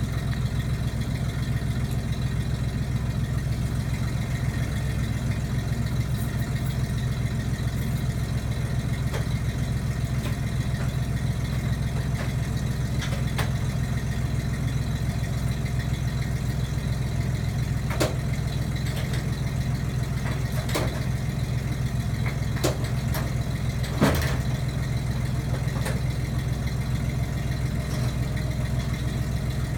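A steady low motor hum, like an engine idling, with a few scattered clicks and knocks in the second half. The loudest knock comes about three-quarters of the way through.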